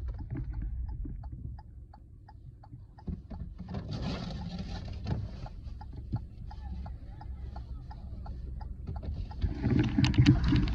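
Low, steady rumble of a car heard from inside the cabin, with scattered light clicks and a patch of hiss about four seconds in.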